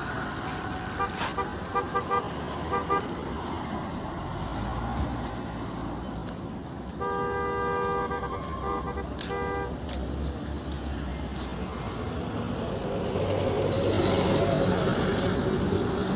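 Road traffic with car horns: a quick run of short toots a second or so in, then one long horn blast lasting about three seconds midway, over the steady noise of passing vehicles.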